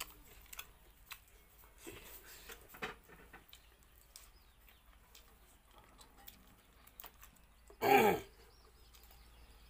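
Soft, scattered clicks and mouth sounds of a person eating rice and curry by hand from a plate. About eight seconds in, a single short, loud cry falls sharply in pitch, followed by faint high chirps.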